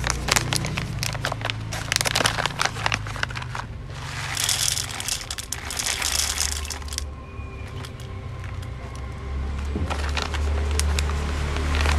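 A coffee-bean bag crinkling as it is handled and opened, then whole coffee beans pouring out of it into a hand coffee grinder for about three seconds, with a few clicks after, over a low steady hum.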